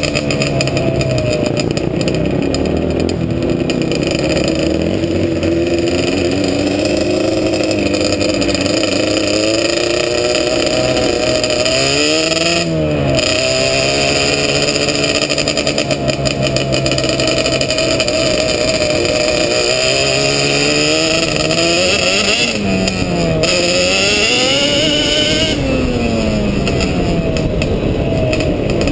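Sport quad engine running hard at high revs. The pitch dips and climbs back about 13 s in and again around 22 to 26 s in, as the throttle is let off and reapplied.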